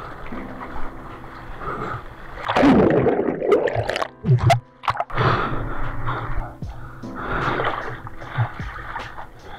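Seawater rushing and splashing over a surfboard-mounted action camera as a small wave washes across the board. The sound drops out briefly as the camera goes under. Music plays underneath.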